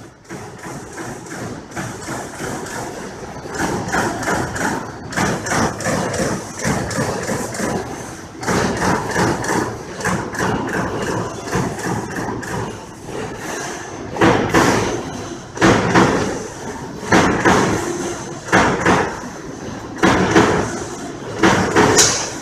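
Amada Pega 367 CNC turret punch press, a 30-ton eccentric-driven mechanical press, punching sheet metal in a rapid run of thudding strokes. In the second half the strokes come in louder bursts about every second and a half.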